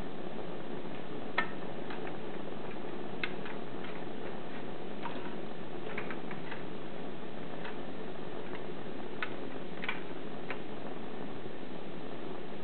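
Propane torch flame hissing steadily as it heats the hot end of a tin-can Stirling engine, with about a dozen light, irregular ticks over it.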